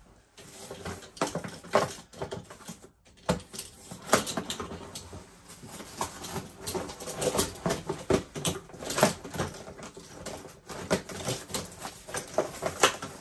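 A new box of plastic hangers being torn open and unpacked: irregular crackling, rustling and sharp clicks, with a short pause about three seconds in.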